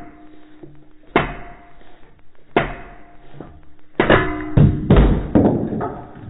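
Metal parts of an Atlas lathe countershaft being banged on to knock them loose, each blow ringing the metal. Two spaced strikes come first, then a quicker flurry of blows in the last two seconds.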